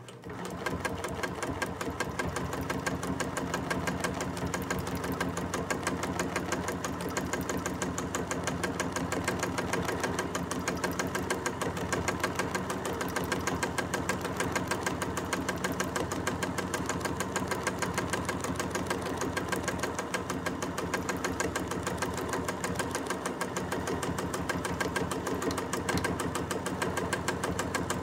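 Bernina sewing machine starting up and then running at a steady speed while free-motion quilting, the needle stitching rapidly in an even rhythm.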